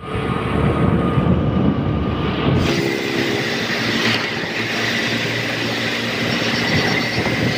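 Motorcycle riding along a busy road: engine running under a dense rumble of road and wind noise. About two and a half seconds in, the rumble thins abruptly into a steadier hum with a thin high tone.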